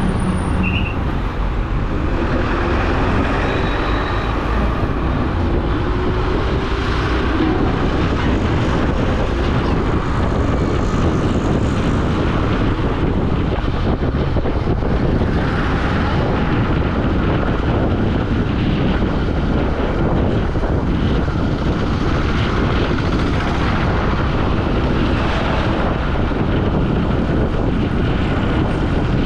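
Motorcycle running at speed, its engine drone mixed with a steady rush of wind over the microphone.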